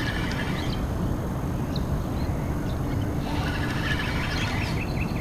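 Birds chirping in short calls, a cluster right at the start and another from about three seconds in, over a steady low rumble.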